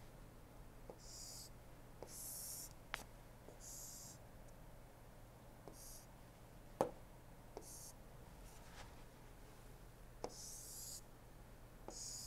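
Stylus pen scratching across a tablet screen in several short strokes, broken by a few sharp taps of the pen, the loudest about seven seconds in. A low steady hum runs underneath.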